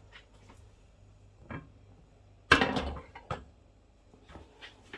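A few light knocks and clicks of handling in a kitchen, with one louder clatter about two and a half seconds in.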